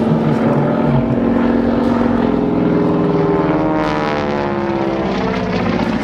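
North American Harvard Mk. II's Pratt & Whitney R-1340 Wasp radial engine and propeller in display flight overhead, a steady drone that drops in pitch in the second half as the plane goes by.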